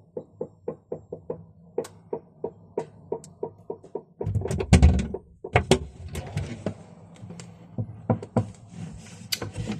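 Light taps, evenly spaced at about three a second, then from about four seconds in a run of louder knocks and thuds.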